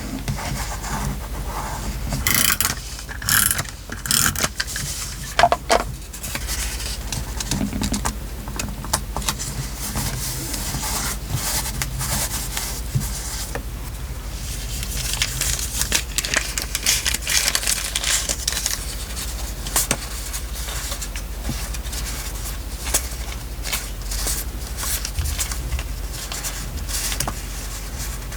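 Paper and craft materials being handled while a journal page is decorated: rustling, rubbing and scraping with scattered light taps and clicks, and a longer stretch of rubbing about halfway through.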